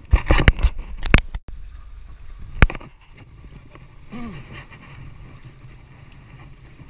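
A quick run of sharp knocks and clatter in the first second, then one more sharp knock a little later, over a low steady background; a brief faint voice comes about four seconds in.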